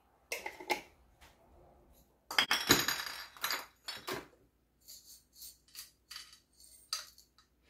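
Glass spice jars and their lids clinking and rattling as whole spices are handled at an electric spice grinder. There are a few light knocks, then a denser clatter about two and a half seconds in, then scattered small clicks.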